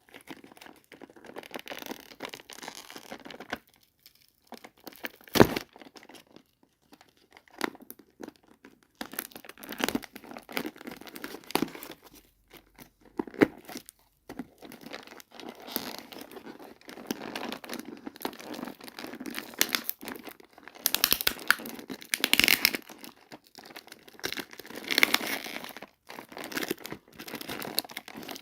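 Doll-set packaging being unboxed by hand: irregular crinkling and tearing, with a sharp click about five seconds in and louder bursts near the end.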